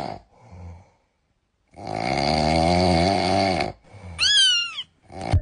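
Snoring: a long, wavering snore on the in-breath, then a short whistle on the out-breath that rises and falls in pitch.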